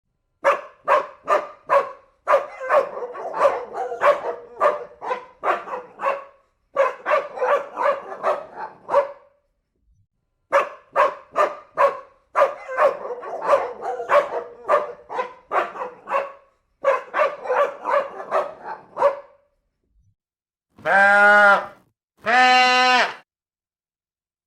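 A dog barking in rapid bouts of short sharp barks, about four a second, with brief pauses between bouts. Near the end come two long, even bleats from a farm animal.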